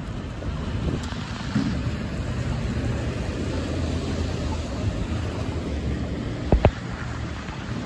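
Street traffic on a wet, slushy road: a steady low rumble of passing vehicles and tyre noise. Near the end come two quick low thumps close together.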